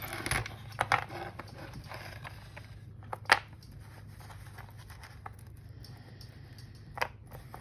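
Small handling noises from jewellery work: light scraping and rustling, with a few sharp clicks of small parts or tools, the loudest a little over three seconds in and another near the end, over a steady low hum.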